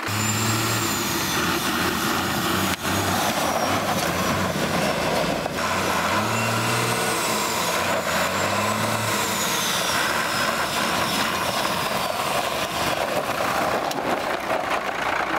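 A 5.9 Cummins diesel engine in a '95 Dodge Ram running as the truck moves. The engine note rises and falls a couple of times about six to nine seconds in.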